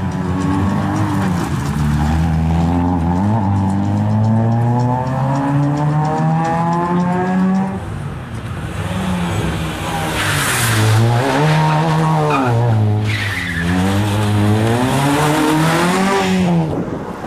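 Rally car engine pulling hard, its revs climbing steadily for about eight seconds with one brief dip for a gear change. The revs then rise and fall several times as the car brakes and accelerates through tight turns, with bursts of tyre squeal in between.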